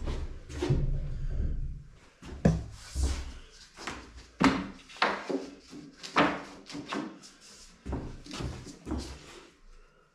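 Irregular knocks, bumps and scrapes of MDF panelling boards being handled and pushed into place against a wall, in a small, echoing room. The knocks fade out near the end.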